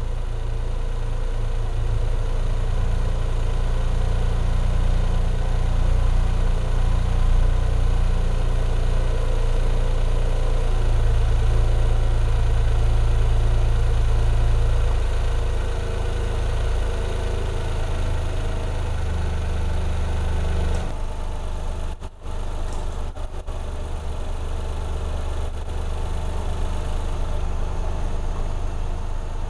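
Toyota GR Yaris's 1.6-litre turbocharged three-cylinder engine idling steadily. Its hum shifts and drops slightly about twenty seconds in.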